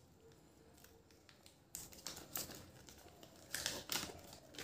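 Faint crinkling and rustling of a folded paper toy leaflet and its wrapping being handled and unfolded, starting about two seconds in and loudest near the end.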